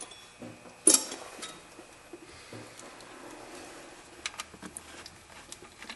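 Hand tools working on a new serpentine belt tensioner's mounting bolts: one sharp metallic clank about a second in, then scattered light clicks from a hand ratchet running the bolts in near the end.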